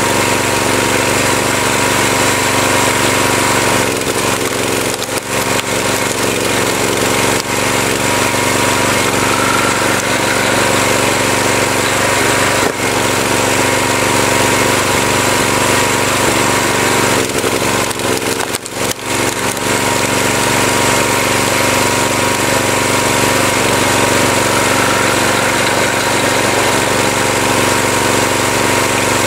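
Tractor engine running steadily while it powers a tractor-mounted wood splitter, with two brief dips in level.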